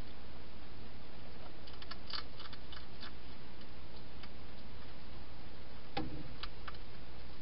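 Wild hedgehog eating, its chewing giving short sharp clicks in a cluster about two to three seconds in and one louder click about six seconds in, over a steady hiss.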